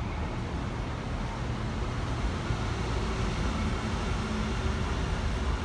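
Steady city traffic noise: an even hum with a low rumble and no distinct events.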